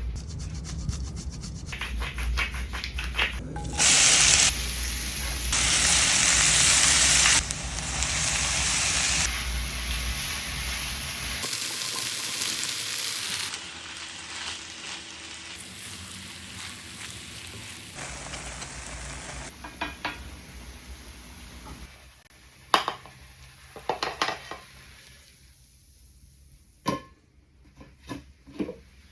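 Cheese frying in a pan for frico, sizzling and hissing through a series of short cut clips, loudest in two stretches early on, with stirring and scraping. In the last third the sizzle dies down and a utensil gives several sharp taps and clicks against the pan.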